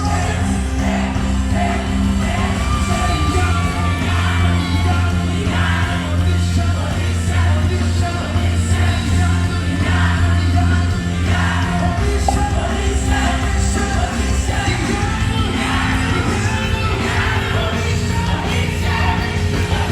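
Worship music with singing over long, held low chords that change every few seconds, and some shouts and whoops.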